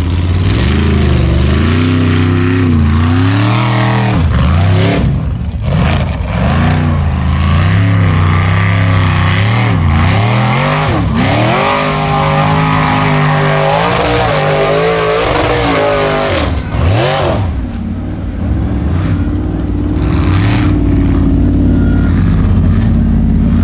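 Formula Offroad unlimited-class buggy's engine revving hard over and over, its pitch rising and falling as the tyres dig and spray dirt on a steep climb. After about 18 seconds the revving gives way to a steadier, lower engine drone.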